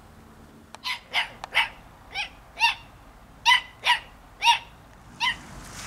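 Small dog barking: about nine short, high-pitched barks in an irregular series.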